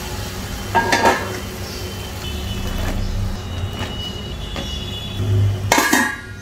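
Stainless steel pan and lid clinking while okra cooks in boiling water: a metal clink about a second in, a few light taps, then the steel lid set down on the kadhai with a ringing clank near the end, over a steady low hum.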